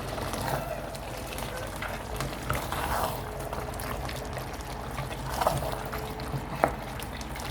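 Pot of egusi soup bubbling and simmering over a steady low hum, with one sharp click near the end.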